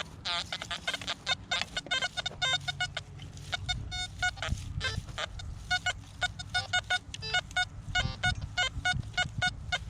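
ORX metal detector giving rapid, irregular short beeps, several a second, with iron turned on: the detector is falsing on the hot, mineralised soil, a bunch of pulsing rather than a solid target signal.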